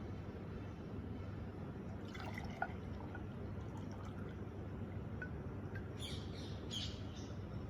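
Water dripping and splashing in short bursts, a few about two seconds in and a brighter cluster around six to seven seconds in, over a steady low hum.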